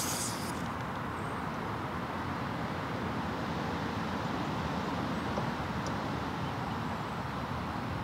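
Steady outdoor background noise with no distinct event, and a couple of faint, brief high chirps.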